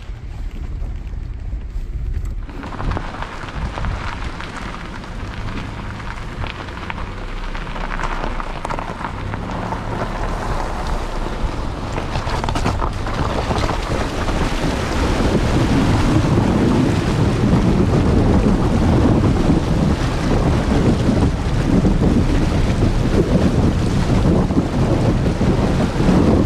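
SUV wading through a shallow, stony river: water splashing and churning around the wheels over a steady low rumble of engine and tyres. The splashing comes in a few seconds in and builds, loudest over the second half.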